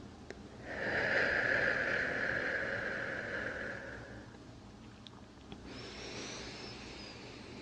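Slow, deep human breathing close to the microphone: one long, loud breath lasting about three seconds, then a softer, airier breath near the end.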